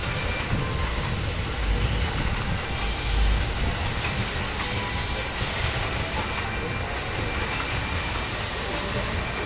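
Running noise of a passenger coach hauled by steam locomotive C56 160: a steady rumble and rattle of wheels on rail, with a hiss that may be steam. The low rumble swells about two to three seconds in.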